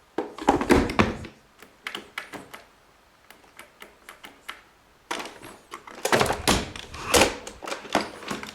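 Plastic parts of a robot vacuum being handled: a quick run of hard clicks and knocks, scattered light taps, then a second longer run of clicks and knocks.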